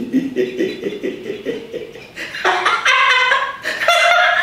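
A man laughing in quick, rhythmic chuckles. About halfway through, higher-pitched laughter takes over.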